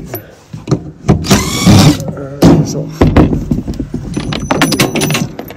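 A metal bracket being wrenched loose overhead by hand: a straining squeal about a second in, then a quick run of clanking knocks and rattles as it works free.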